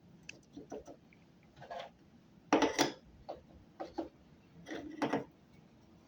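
Hands handling shower-drain parts and wiping grease off the fingers: scattered small clicks and taps with a few short rustling scrapes, the loudest about two and a half seconds in.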